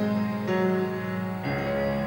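Background music: slow held chords, moving to new notes about half a second in and again a second and a half in.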